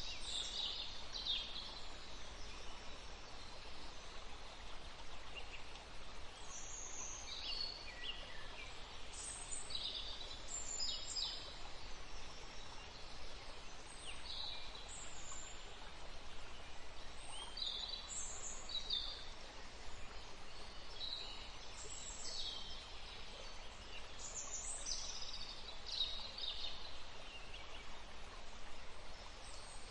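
Wild songbirds chirping and trilling in short, high calls scattered throughout, several at a time, over a steady background hiss.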